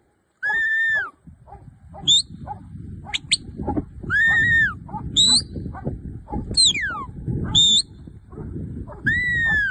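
Shepherd's whistle commands to working sheepdogs: several long held whistles that rise and fall at the ends, short sharp chirps, and one whistle that slides downward, with dogs barking repeatedly underneath.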